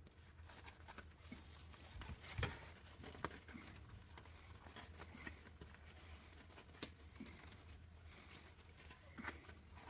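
Faint, scattered clicks and knocks of hands working a wheelchair wheel and tyre during a tyre change, the sharpest about two and a half seconds in, over a low steady hum.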